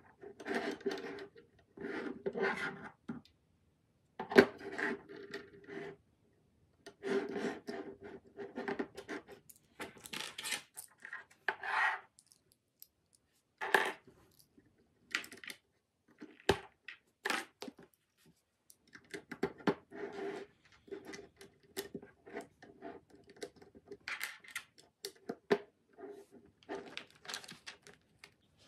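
LEGO bricks being handled and pressed together on a wooden tabletop: plastic pieces rubbing, clicking and scraping in short irregular bursts, with gaps between them and one sharp click about two-thirds in. The audio plays at one and a half times speed.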